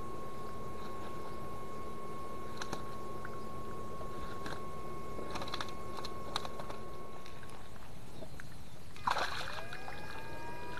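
Electric fish shocker humming with a steady high tone over splashing and scattered clicks in muddy water; about nine seconds in, a crackle, then a rising whine that settles into several steady tones as the probe is worked in the water, stunning fish.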